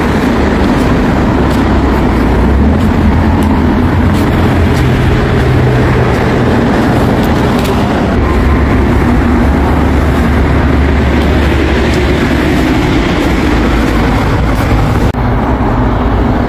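Busan Metro subway train running on the rails: a loud, steady rumble with faint clicks, changing abruptly about fifteen seconds in.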